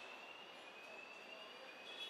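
Faint assembly-hall ambience: a steady hiss with a thin high tone slowly rising in pitch and a few faint ticks.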